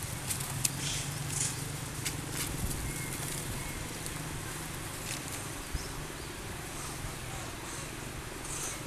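Long-tailed macaques scuffling and wrestling on ground strewn with dry leaves: scattered rustles and light crackling clicks, thickest in the first few seconds, over a steady low background hum.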